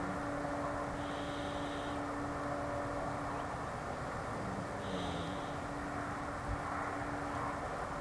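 Loud, steady idling hum from an unidentified source outside: a constant drone with a low steady tone running through it. The person recording rules out a generator. A single soft low bump comes about two thirds of the way through.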